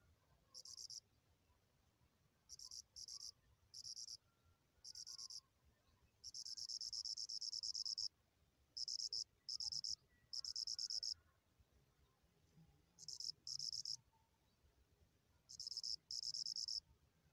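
Crickets chirping in irregular bursts of high, rapidly pulsed trills, most of them short, with one longer trill of nearly two seconds about six seconds in.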